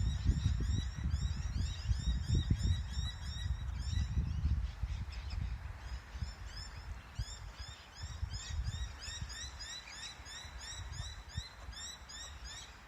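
Kangaroo vocalizing with low, rapid pulsed clucking, loudest in the first few seconds and then in weaker bursts. The call is probably courtship. A fast, high repeated chirping runs behind it.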